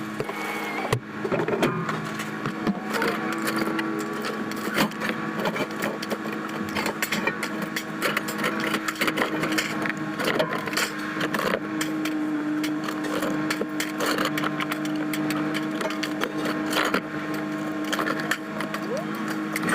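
Vehicle engine running with a steady hum, overlaid by frequent short rattles and clanks.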